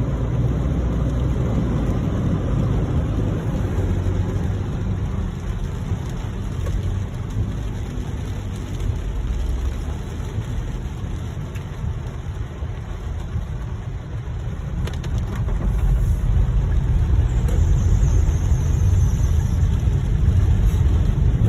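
Car driving on a wet, flooded road, heard from inside the cabin: a steady low rumble of engine and tyres with a hiss of water, growing louder near the end.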